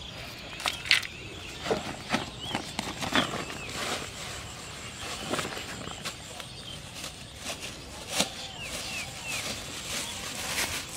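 Handling noises as fishing gear, a plastic bag and a plastic tub are set down and opened on grass: scattered clicks, knocks and rustles. Short bird chirps sound in the background.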